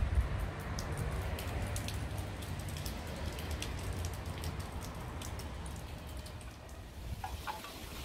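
Scattered raindrops ticking, fewer toward the end, over a low steady rumble.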